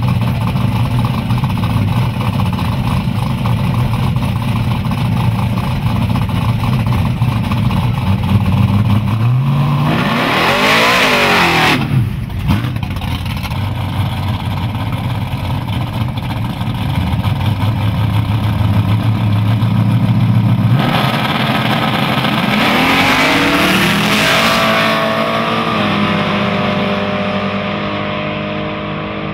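Drag cars' engines running at the start line, one revving up in a rising sweep about ten seconds in. Later two cars launch side by side and accelerate hard away, their engine notes rising and then stepping down and fading as they pull away down the track.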